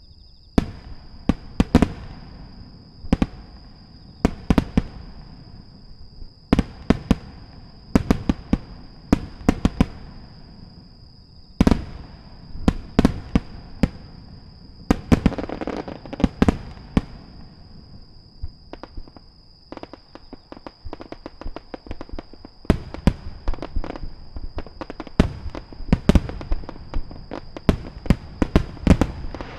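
Aerial firework shells bursting: a string of sharp bangs, some in quick clusters, with a crackling stretch about halfway through. Over the last ten seconds the bursts come thicker and faster. A thin steady high whine runs underneath.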